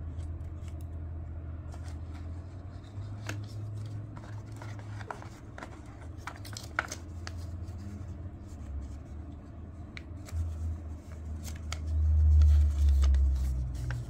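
An old folded paper leaflet being handled and unfolded: rustling and crinkling with small clicks and taps, over a low steady hum. About ten seconds in, a louder low handling rumble comes as the leaflet is opened out to full length.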